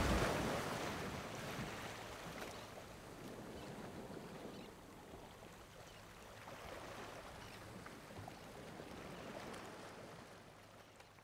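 Trailer music fading out, then faint harbour ambience: an even wash of water against a marina with a low steady hum, itself fading away at the end.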